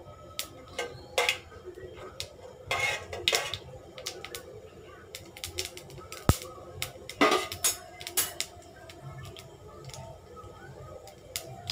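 Mustard seeds crackling and popping in hot oil in a kadai as they are tempered, with sharp irregular pops and a spatula scraping the pan now and then.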